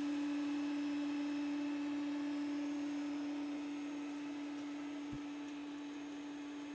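Creality CR-10 S5 FDM 3D printer running with a steady one-pitch hum as it lays down the last layers of a very long print, easing off slightly near the end. A faint click about five seconds in.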